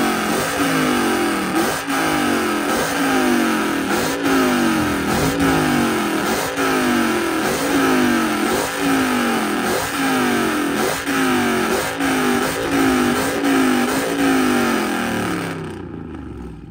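Dodge Charger's V8 exhaust revved again and again while parked: a quick rev about every 0.7 seconds, each falling back before the next, fading and cutting off near the end.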